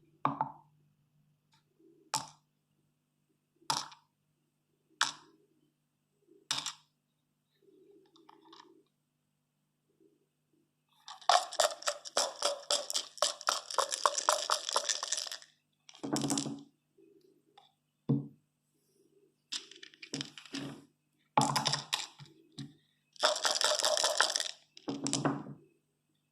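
Dice clattering on a hard surface. First come single sharp knocks about a second and a half apart, then long runs of rapid rattling clicks.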